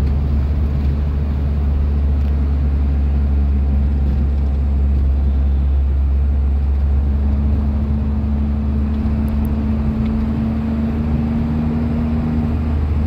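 Car running along the road, heard from inside the cabin: a steady low rumble of engine and road noise, with a humming tone joining in about halfway through.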